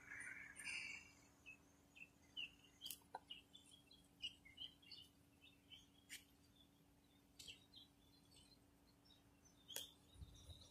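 Near silence with faint, scattered bird chirps and a few soft clicks.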